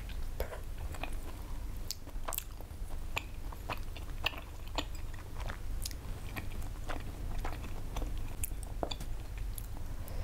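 Close-miked chewing of chewy tteokbokki rice cakes in sauce, with irregular wet smacks and clicks of the mouth about two a second, over a steady low hum.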